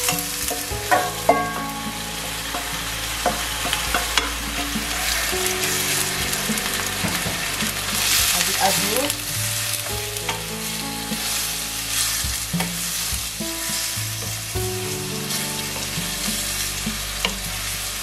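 Marinated beef strips and sliced onions sizzling steadily in hot oil in a stainless steel frying pan as they are stirred with a wooden spoon, with occasional sharp knocks of the spoon against the pan.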